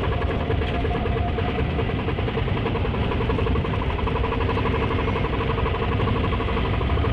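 Auto rickshaw engine idling steadily while the vehicle stands still, with an even, regular pulse.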